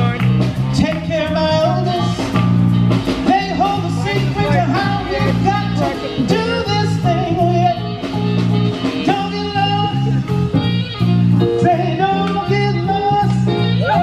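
Blues music with a singer, guitar and a steady bass line.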